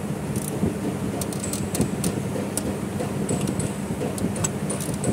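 Light metallic clicks and clinks of a hand tool tightening the throttle body's mounting bolts, over a steady low background hum.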